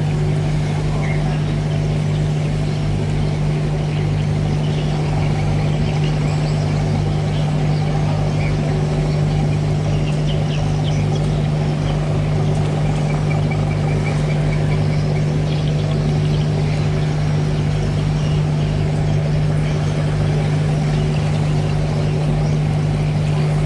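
Ship's diesel engines running steadily: a deep, constant hum with a low throb beneath it.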